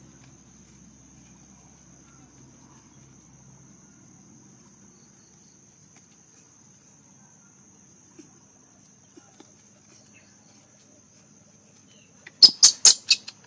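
Steady high-pitched insect drone over faint outdoor background noise. About a second before the end, a quick run of about five sharp, loud clicks.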